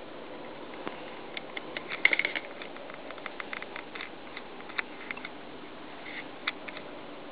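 Irregular small clicks and ticks over a steady hiss, with a quick run of clicks about two seconds in: handling noise of a compact camera picked up by its own built-in microphone.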